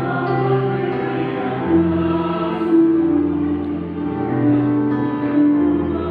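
Choir singing sustained chords, the voices holding long notes that move together from chord to chord.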